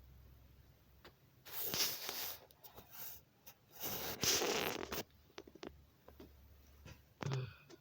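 Dog snoring: two long, rasping breaths about two and a half seconds apart, followed by a few faint clicks.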